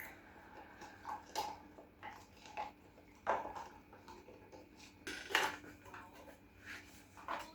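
Kitchen clatter: dishes and cutlery clinking and knocking in short, irregular strikes, the loudest about five seconds in.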